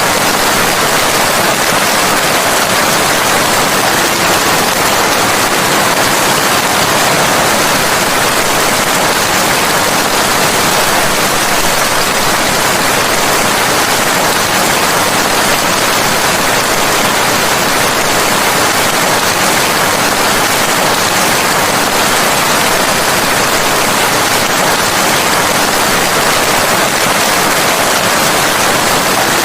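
Steady, heavy rain: a loud, even hiss with no breaks or changes.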